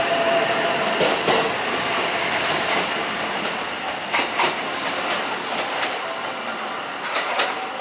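JR West 227 series 'Urara' electric train pulling away and receding, its sound fading steadily. A motor whine dies out in the first second or so, and its wheels clack over the track in quick pairs, three times.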